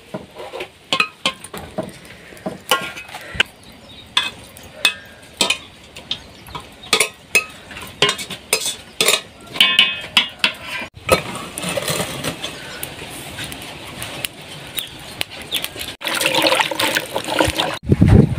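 Kitchen work: a string of clinks and knocks of pots, dishes and utensils, a few ringing briefly, for about the first eleven seconds. Then a steady rush of water, louder near the end.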